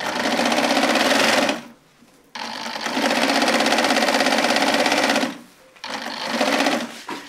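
Sewing machine stitching in three runs with short pauses between: about a second and a half, then about three seconds, then about one second. Each run has a fast, even rhythm.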